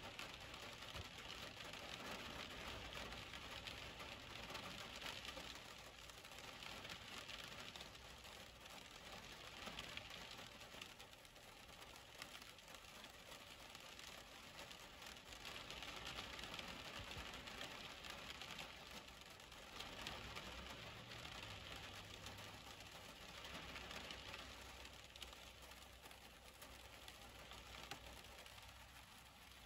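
Faint steady rain with the hiss of tyres on a wet road swelling and fading several times as vehicles pass, over a low steady hum.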